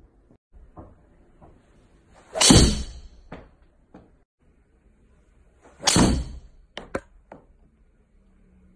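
Two golf drives, each a sharp metallic crack of a driver's clubhead striking the ball with a brief ring, about three and a half seconds apart. A few fainter knocks follow each strike.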